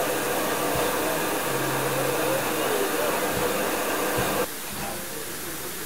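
Steady hiss of steam from a standing steam locomotive, class 477 'Papoušek' no. 477.043. The hiss drops suddenly to a quieter level about four and a half seconds in.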